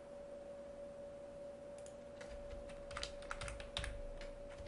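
Faint clicking of a computer keyboard and mouse, a scattered run of key and button clicks in the second half, over a thin steady hum.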